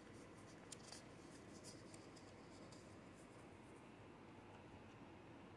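Near silence with faint rustles and light ticks of Pokémon cards and plastic card sleeves being handled, the sharpest tick about a second in.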